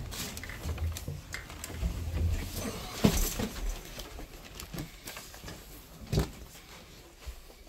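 Footfalls and scattered knocks from someone walking through a railway carriage, over a low rumble, with the sharpest knock about three seconds in and another about six seconds in.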